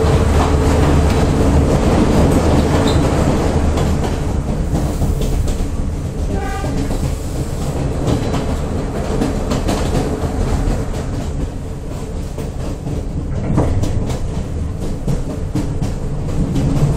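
Continuous loud rumble of a moving vehicle with frequent short clacks over it, typical of riding in a rail car. A brief pitched tone sounds about six and a half seconds in.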